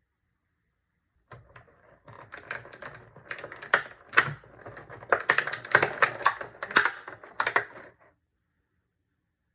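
Hands handling plastic toy pieces and packaging: a dense run of sharp clicks and taps over rustling, starting about a second in and stopping about a second and a half before the end.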